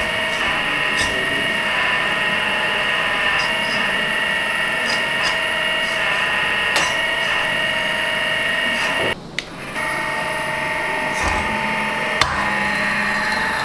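Electric hydraulic pump of a 1/12-scale RC hydraulic excavator running with a steady whine, with a few light clicks. It cuts out for about half a second around nine seconds in, then resumes.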